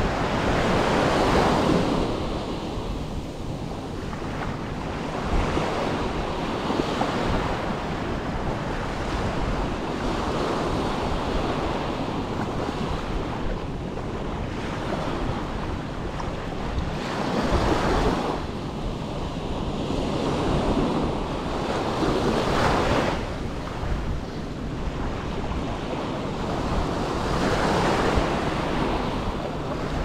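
Small sea waves washing up on a sandy beach, the rush of water swelling every few seconds, with wind buffeting the microphone.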